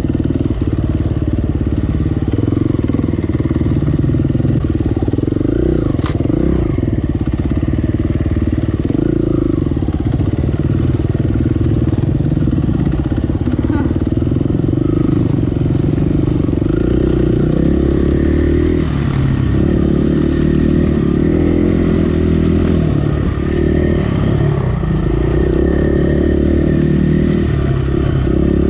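KTM EXC four-stroke single-cylinder enduro bike engine running on a trail ride, its note rising and falling with the throttle, heard up close from a camera on the bike. A sharp knock about six seconds in.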